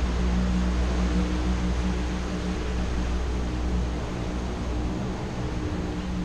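A boat's engine running with a steady low hum, its deepest part dropping away after about four seconds as the boat passes.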